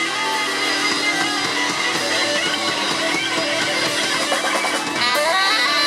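Live rock band playing with electric guitar out front, the instrumental close of the song after the last sung line.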